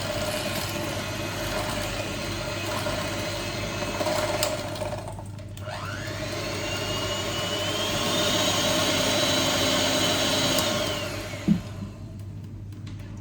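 Electric mixer beating icing in a bowl. The motor runs, drops out briefly about five seconds in, then spins back up with a rising whine, holds steady, and winds down near the end. A couple of short knocks follow.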